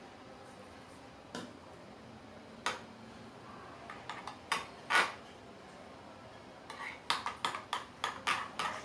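A spoon clinking against a bowl while slime mixture is stirred: a few separate knocks, then a quick run of clinks near the end. The stirring mixes in boric acid water added drop by drop as the activator.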